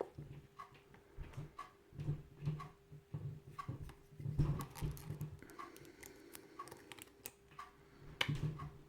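Medium hook pick probing and setting the pins of an ASSA six-pin euro cylinder held under tension: faint, irregular metallic clicks and light scraping, with a few soft handling knocks.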